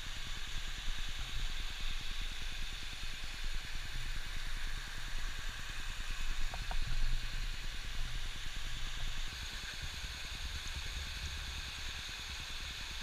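Mountain stream and small waterfalls cascading over rocks: a steady rush of water.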